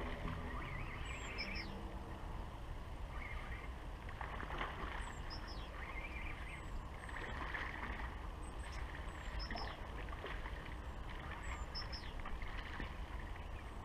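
Riverside ambience: a steady low rumble, with a small bird chirping a short double note every couple of seconds.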